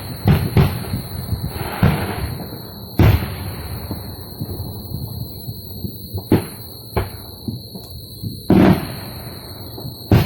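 Explosive bangs going off at irregular intervals, about eight in all, each followed by a long echoing tail. The one near the end of the second quarter is the loudest, and one about two thirds of the way through lasts longer than the others. A steady high whine runs underneath.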